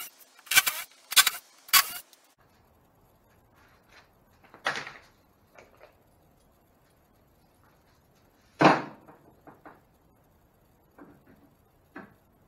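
Cordless drill run in four short bursts with a 3/8-inch bit, enlarging a bolt hole through a boat's transom. After that come a knock and then a louder single thump about nine seconds in, with a few light clicks near the end.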